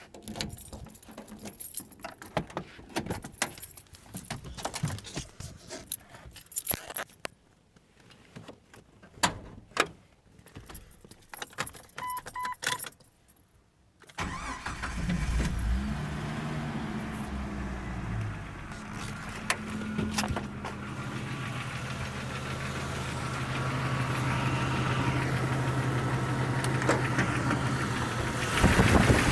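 Keys jangling and clicking, then about halfway through a 1999 Jeep Cherokee XJ engine cranks and starts from cold, flares briefly and settles to a steady idle. The idle carries a cold-start knock that the owner takes for piston slap.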